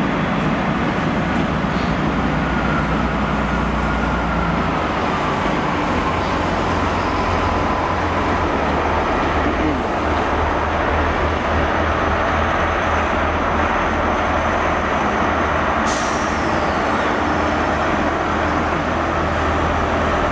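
A GWR High Speed Train's Class 43 diesel power cars running as the train moves slowly along the platform, giving a steady low engine drone. A faint falling whine comes a few seconds in, and a brief sharp high hiss about sixteen seconds in.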